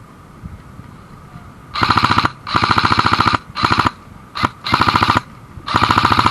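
Airsoft gun firing on full auto: after a quiet start, about six rapid bursts of evenly spaced shots with short pauses between them, the first almost two seconds in.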